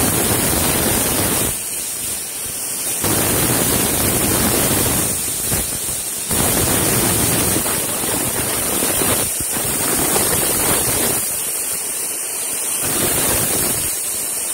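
Aluminium pressure cooker whistling: steam hisses loudly from under the weight valve, surging and easing as the cooker vents at full pressure. These are the whistles that are counted to time the cooking.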